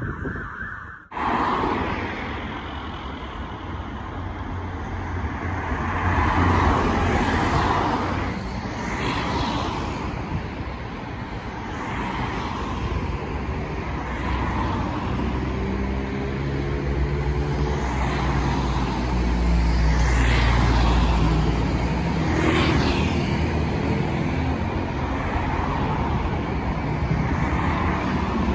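Road traffic: cars passing one after another, each swelling and fading, over a steady low engine rumble. Near the end a vehicle's engine note rises as it accelerates.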